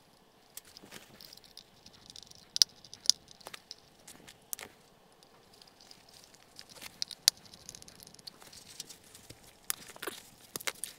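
Scattered small clicks and taps of plastic and metal as cable cores are screwed into the terminal block of a Lutron lighting controller and its plastic housing is handled, a few of them sharper than the rest, over soft rustling.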